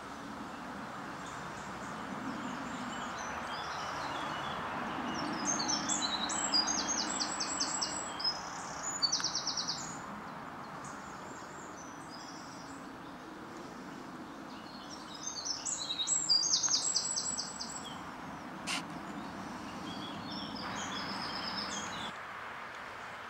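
Songbirds singing, with two bouts of rapid, high trilled phrases, the first about five seconds in and the second about fifteen seconds in, over a steady outdoor background noise.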